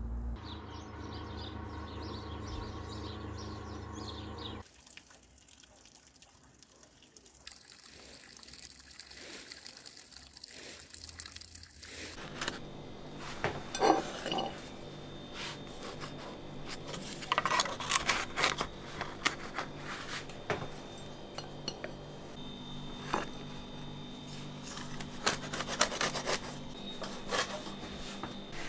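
Kitchen handling sounds: repeated short knocks and clinks of a metal baking tray and a ceramic plate as fresh-baked pies are lifted from the tray onto the plate, over a steady hum. A steady outdoor drone comes first and stops about five seconds in.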